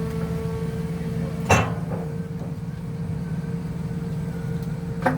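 Heavy diesel engine of an excavator running steadily, with a sharp loud knock about a second and a half in and a smaller one near the end.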